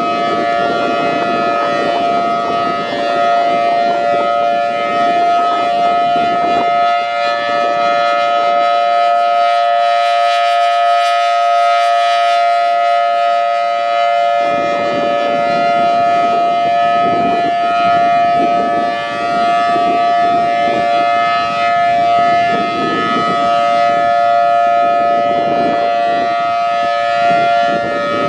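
Federal Signal Thunderbolt 1000T blower-driven outdoor warning siren sounding the full-alert steady signal, holding an unchanging pitch throughout. Heavy wind rumbles on the microphone over it, easing for several seconds about a quarter of the way in.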